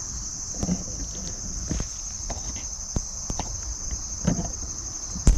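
A steady, high-pitched chorus of insects, with footsteps on a forest trail about once a second; the last steps are the loudest.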